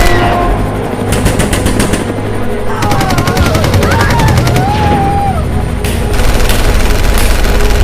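Automatic gunfire in two rapid bursts, one about a second in and a longer one from about three seconds in, over a dense low rumble, with wavering wailing tones rising and falling above it. It is a chaotic combat soundtrack used to desensitise protection dogs to noise.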